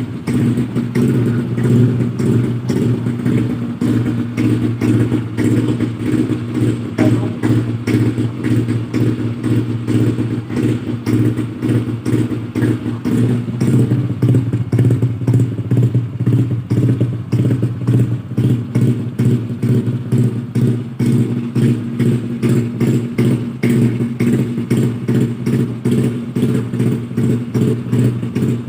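Yamaha NMAX scooter engine with an aftermarket DOS exhaust, running at a steady, low idle with a pulsing rumble from the exhaust.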